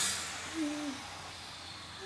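A young child gives one short vocal sound, just over half a second in. A hiss fades away at the very start.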